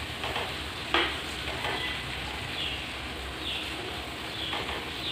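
Smoked pork and pig's feet frying in a wok, a steady sizzle, with a single sharp knock about a second in.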